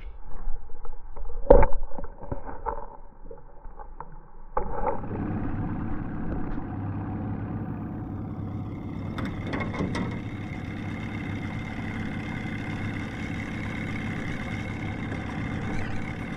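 A few loud knocks and thumps, then, about four and a half seconds in, the steady sound of an outboard motor running at trolling speed comes in suddenly and holds.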